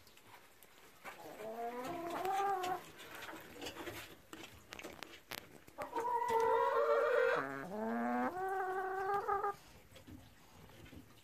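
Domestic hen calling: two spells of long, wavering, drawn-out calls, the second louder and longer, with a brief dip in pitch partway through.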